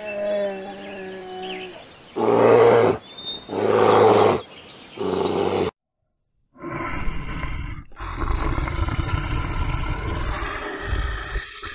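Bear vocalising: a drawn-out moaning call, then three loud growls. After a short break, a longer continuous rough growl follows.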